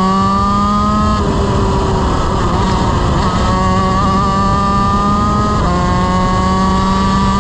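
Honda CR125 two-stroke single-cylinder shifter kart engine at high revs, heard onboard, its pitch climbing as it pulls through the gears. About a second in, the steady note breaks up into a rough noise for about two seconds. It then climbs again, with a quick upshift near the end.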